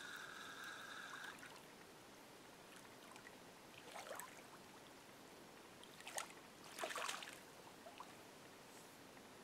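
Water splashing and sloshing at the surface in a few short bursts, about four, six and seven seconds in, as the angler stands in the lake with a fish on the line. A steady high whirr sounds for the first second and then stops.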